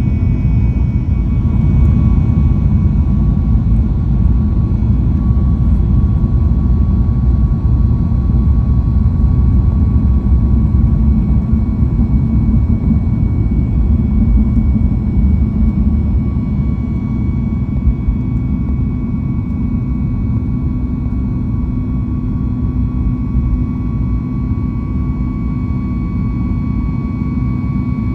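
Boeing 737 MAX 8's CFM LEAP-1B turbofan engines at takeoff power: a heavy, steady rumble with a thin, even whine on top. It swells slightly early on and eases a little later.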